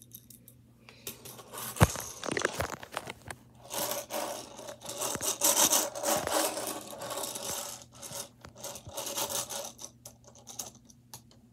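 Tech Deck fingerboard and hand scraping and rubbing on a wooden desk close to the microphone, with many small clicks and one sharp knock about two seconds in.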